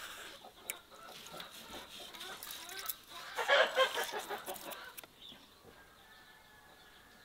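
Chicken clucking, in a run of short repeated calls loudest about three and a half seconds in, with a few light clicks over the first three seconds; it quietens after about five seconds.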